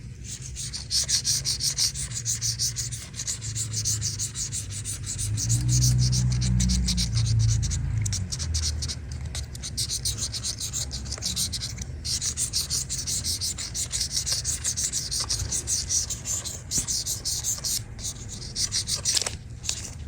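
Rapid back-and-forth scrubbing on the grimy casing of an iPad, a fast run of rubbing strokes broken by a few brief pauses. A low hum swells for a couple of seconds about a third of the way in.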